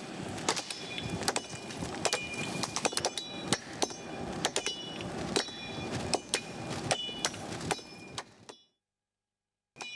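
Machetes hacking at a fallen tree trunk: repeated chops, roughly one a second, each blade strike with a brief metallic ring. The chopping breaks off into about a second of silence near the end.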